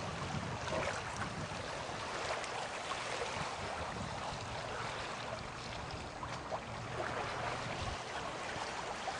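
Water rushing and splashing along the hull of a 1978 Pearson 23 sailboat moving under sail, a steady wash with small crackles, and some wind rumbling on the microphone.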